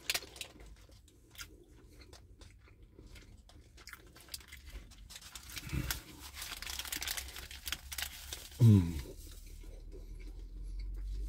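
A person eating a burger held in a paper wrapper: close-up chewing and biting mixed with the wrapper crinkling and tearing, as irregular small crackles with a longer rustle of paper partway through.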